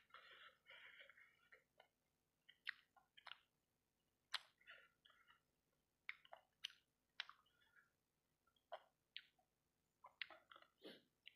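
A person chewing fried rice-ball satay coated in sauce, close to the microphone. Sharp mouth clicks and short bursts of chewing come irregularly, with brief pauses between them.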